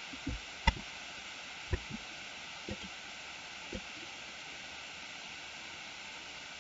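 Steady faint hiss of microphone noise with about six soft clicks and thumps in the first four seconds, typical of keyboard keys, including the spacebar pressed twice to play the animation, and mouse clicks on a desk.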